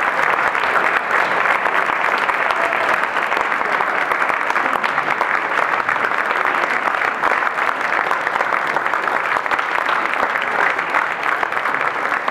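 Audience applauding steadily, the sound of many hands clapping at once.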